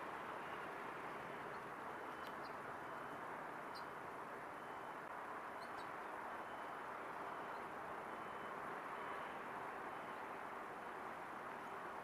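Steady outdoor background noise, with a faint high tone pulsing about once a second and a few faint high chirps.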